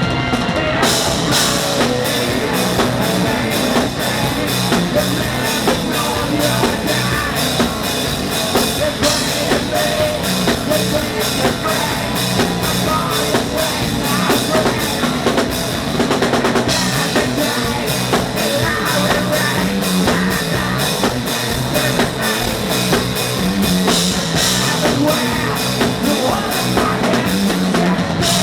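Rock band playing live: a drum kit keeps a steady, fast beat under guitars.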